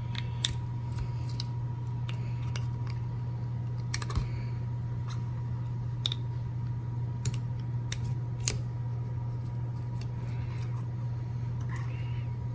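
Scattered small metal clicks and taps as a 1911 pistol's steel recoil spring plug is pressed into the slide under spring tension with a barrel bushing wrench, and the bushing is turned. The sharpest click comes a little past halfway, over a steady low hum.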